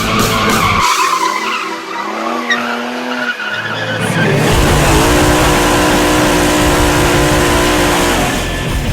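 Holden Commodore doing a burnout: the engine is held at high revs while the rear tyres spin and squeal. The revs climb in the middle, then hold steady from about five seconds in until just before the end.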